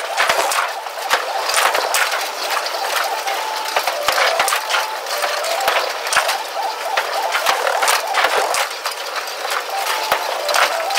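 Bowling alley clatter: a dense, rapid run of clicks and knocks from pins and balls, thin and with no low rumble.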